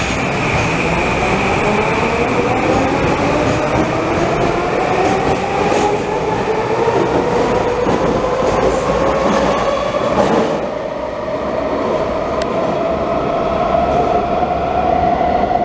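SkyTrain's linear-induction-motor train whining, its pitch rising slowly as it accelerates away from an underground station platform. About ten seconds in the sound changes to a steadier whine with rail running noise, heard from aboard a train moving through a tunnel.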